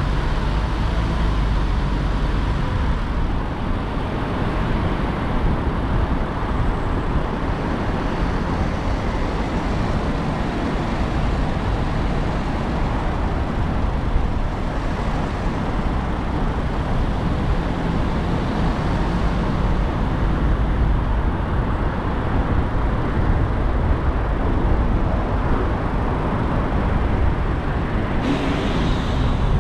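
A car driving in city traffic: steady rumble of tyres on the road and engine noise, with a brief hiss near the end.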